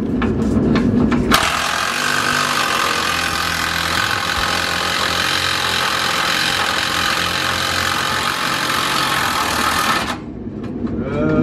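A power tool running steadily with a whine for about nine seconds, starting abruptly a second in and cutting off suddenly near the end.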